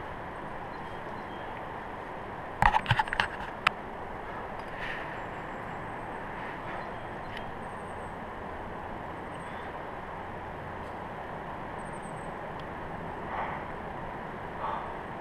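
Steady wind hiss on an action camera's microphone, broken about two and a half seconds in by a short clatter of sharp clicks. A few faint breaths near the end.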